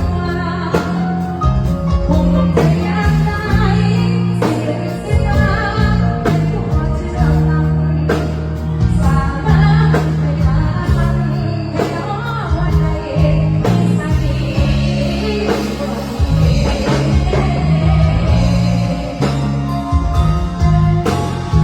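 Live band music with a woman singing over a steady drum beat and a heavy bass line, played through a rot hae sound-truck PA system.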